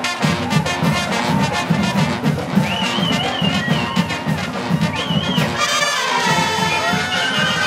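Marching band playing a tune, with brass and flutes over a steady, regular beat. A high warbling line sounds above the band for about two seconds near the middle, and again briefly just after.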